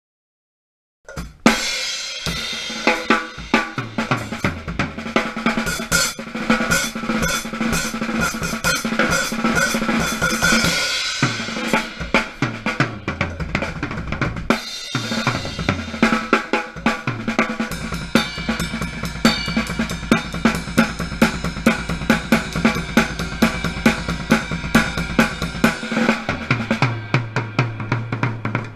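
Drum kit being played, with kick drum, snare, hi-hat and cymbals in a steady run of hits starting about a second in, over a sustained low tone. Recorded by a GoPro Hero 3 sealed in its watertight housing.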